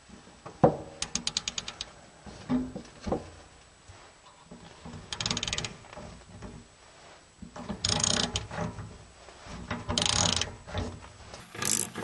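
Ratchet and socket clicking in short runs, with a sharp knock about half a second in, as a sprinkler extractor tool is turned to back a broken plastic drain plug out of an Atwood RV water heater.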